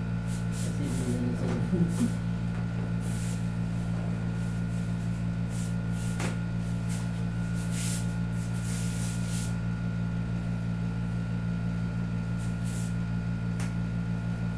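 Steady low electrical or machine hum with a thin high whine running under it, typical room noise. Over it come soft, brief rustles of hands and clothing as a massage is worked on a person's back and neck.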